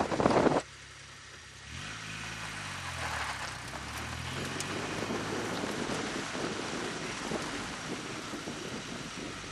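A loud rush of wind on the microphone, cut off abruptly about half a second in. Then a car engine comes in with a wavering note, giving way to the steady rush of a vehicle driving along a rough dirt track.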